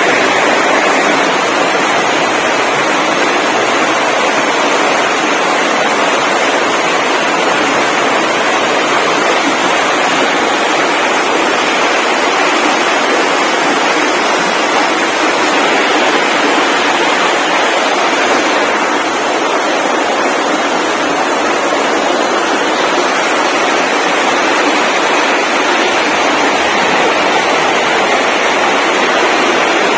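Steady, loud rushing noise with no pauses and no distinct events.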